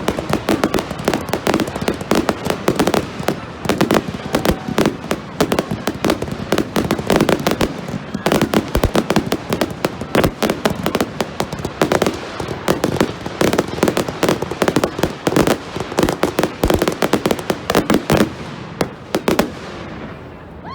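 Fireworks going off in a dense, rapid barrage of bangs and crackles, many a second, thinning out near the end.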